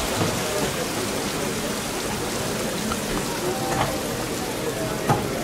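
Steady hubbub of crowd chatter and hall noise in a busy exhibition hall, with two light knocks in the second half.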